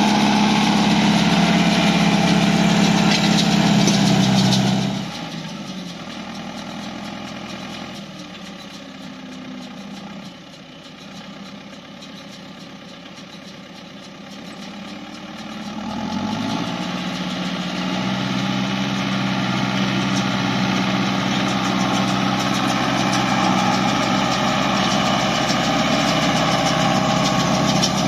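Case CS94 tractor engine running steadily while pulling a Welger RP 220 round baler through hay, its pickup and chamber turning. Loud and close at first, it drops abruptly about five seconds in to a fainter, distant run, then builds again as the tractor and baler come near.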